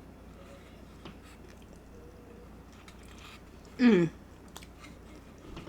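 Close-up mouth sounds of someone eating birria tacos: faint chewing, biting and wet clicks. About four seconds in, a short pitched vocal sound falling in pitch stands out as the loudest moment.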